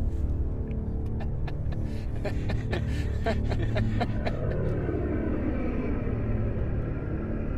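Dramatic underscore: a steady low rumbling drone with a quick, irregular run of clicks and knocks over the first half, then a swelling, gliding tone in the second half.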